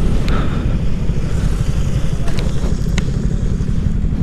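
Motorcycle running on the road, heard through heavy wind and road rumble on the rider's microphone.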